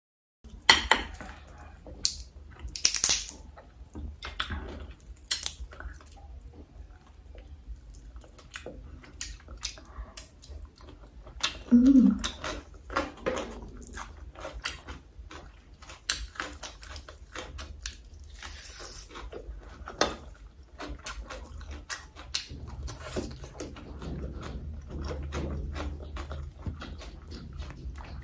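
Close-up eating sounds: fried crab shell cracked and pulled apart by hand, with crunching and chewing as a run of sharp clicks. A brief, louder, lower mouth sound comes about twelve seconds in.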